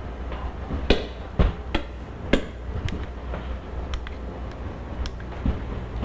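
Scattered short clicks and light knocks, about eight in all and unevenly spaced, over a steady low hum of room noise.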